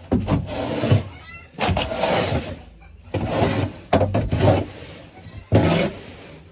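Long-handled rake scraping used wood shavings across a wooden coop floor in about five or six strokes, each under a second, with short pauses between them. Chickens call in between the strokes.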